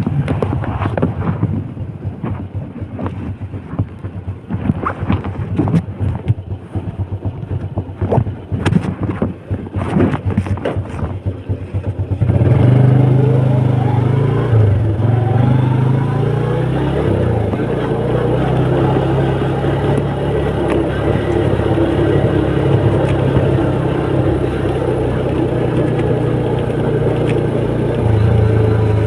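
Wind buffeting and crackling on the microphone for about twelve seconds, then a motorcycle engine comes in suddenly and runs loud and steady under way, its pitch wavering a few times soon after it starts and then holding.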